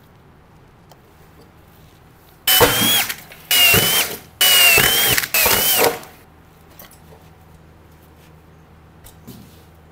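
Cordless drill/driver running in four short bursts, starting about two and a half seconds in, driving screws to fix a contactor to the sheet-metal panel of an air-conditioner outdoor unit. Each burst has a high motor whine that sags as it stops.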